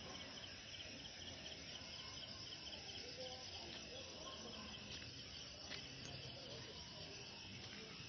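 Faint night insects chirping in a fast, even pulse that fades after about three seconds, over low background noise.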